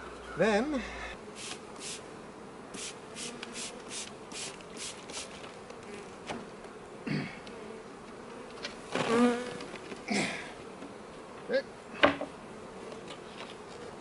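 Honeybees buzzing around an open Langstroth deep box of frames, with a run of quick light ticks in the first few seconds and a few sharper knocks later, the loudest near the end.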